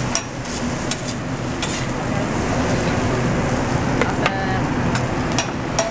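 Food sizzling on a hibachi griddle, a steady hiss, with scattered sharp clinks of metal utensils.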